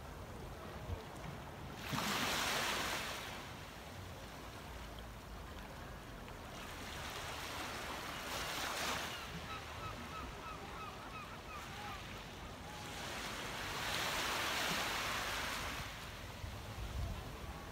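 Small sea waves washing up onto a pebble beach, swelling three times several seconds apart.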